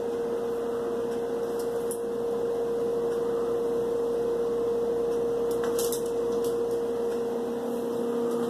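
A steady electrical hum holding one tone, with a few faint light clicks; near the end a lower hum tone joins in.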